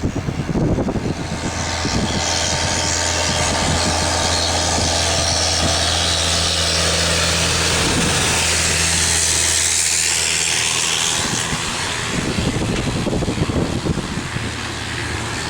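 Boeing 777-300ER's GE90-115B turbofans at takeoff thrust: a loud jet roar with a strong hiss over a steady low hum. It builds over the first two seconds, holds, then fades after about eleven seconds as the jet climbs away.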